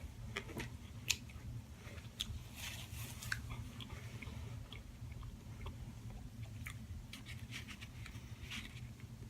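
A person chewing and biting food close to the microphone, with scattered crisp crunches and wet mouth clicks, over a steady low hum.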